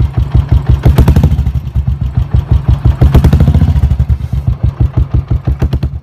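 Royal Enfield Bullet's single-cylinder four-stroke engine idling with its typical steady thump of exhaust beats, blipped to higher revs about a second in and again around three seconds in.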